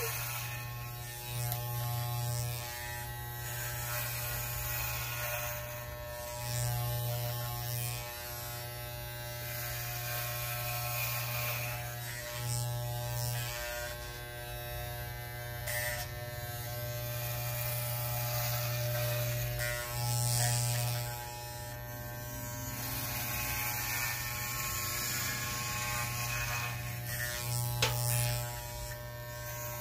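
Corded electric hair clippers with a number 4 guard buzzing steadily as they are run over the head. The buzz swells louder for a second or so several times.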